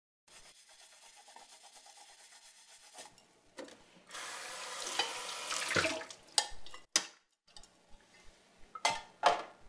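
Washing up at a kitchen sink: a faint rhythmic rubbing at first, then the tap running into the sink for about two seconds, followed by several sharp clanks of dishes and pots being set down.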